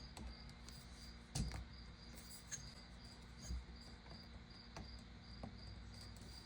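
Faint handling noise from rail kit parts being fitted onto an air rifle's tube: a few light clicks and knocks, the loudest about a second and a half in, over a low steady hiss.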